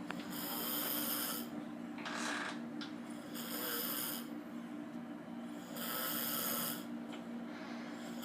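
A sleeping person snoring in slow, regular breaths, with a louder snore about every two to three seconds.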